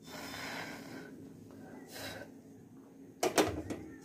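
Faint hiss of a lit gas stove burner, then a short knocking clatter about three seconds in.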